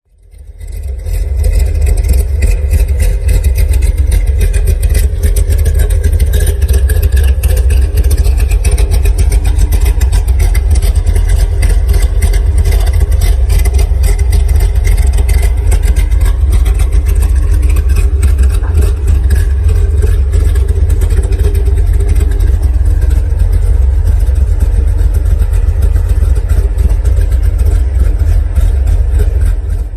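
Cammed 3.6-litre Pentastar V6 engine running steadily at idle, loud and deep, fading in over the first second.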